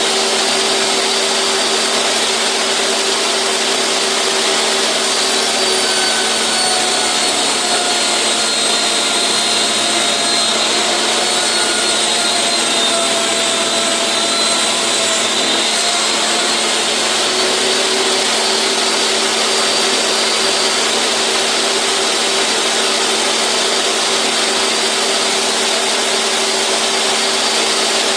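A 10-inch jobsite table saw with a Diablo blade runs steadily, cutting 1/8-inch plexiglass. From about six seconds in to about seventeen seconds in, its tone drops and wavers while the blade is in the cut, then it settles back to its free-running pitch.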